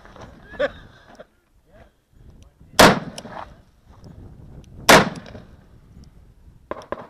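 Two loud revolver shots about two seconds apart, each with a short echoing tail, from a Smith & Wesson revolver fired on a handgun-match stage; a few faint knocks come before the first shot.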